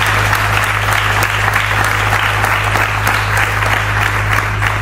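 An audience applauding: a dense, sustained patter of many people clapping in a tent, over a steady low hum.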